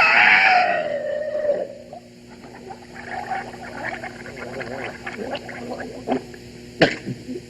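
Radio-drama sound effect of a woman sinking into quicksand: a loud cry that falls in pitch and fades over the first second and a half, then a run of irregular gurgling, bubbling sounds. A sharp knock comes near the end.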